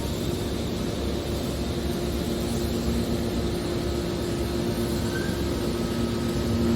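Hydraulic metal baler running: a steady mechanical drone with a constant low hum.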